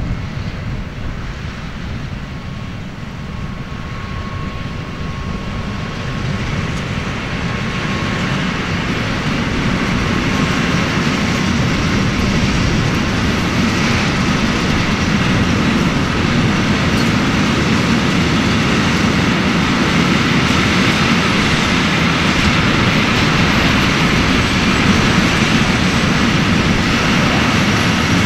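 Class 232 'Ludmilla' diesel locomotives hauling a full tank-wagon train, with a deep engine rumble in the first seconds. From about six seconds in, the rolling noise of the loaded tank wagons' wheels on the rails grows louder and then stays steady as the wagons pass close by.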